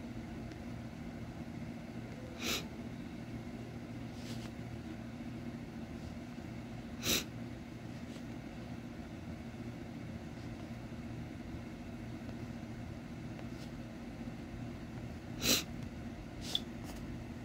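Steady low hum of room noise. Three short puffs of noise break it, a few seconds apart, and a couple of faint clicks come near the end.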